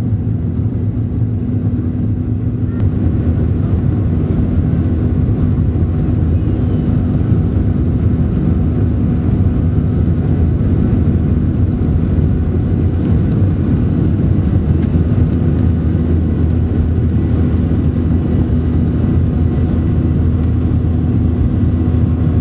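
Jet airliner's engines running while it taxis, heard inside the cabin: a steady low rumble with a constant hum.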